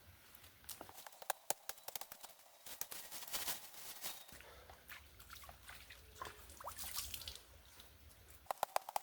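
Dry leaves and sticks crackling and snapping in irregular bursts, with rustling in between, as brush and leaf litter are handled and trodden while clearing ground.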